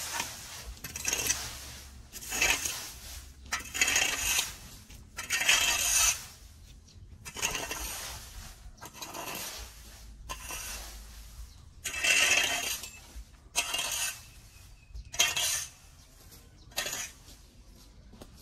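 A rake dragged through dry fallen leaves and grit in repeated scraping strokes, about one every second or two, with a short pause midway.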